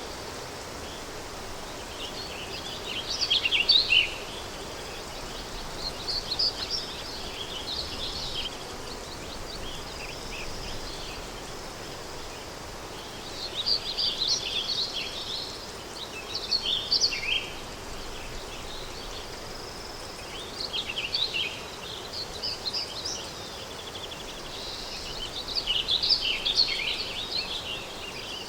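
Countryside daytime ambience: small birds singing in short chirping phrases every few seconds over a steady background hiss of wind.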